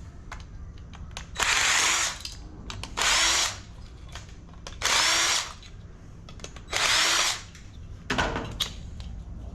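A power drill run in four short bursts a second or two apart, its motor whine rising as it spins up each time. A few clicks and knocks follow near the end.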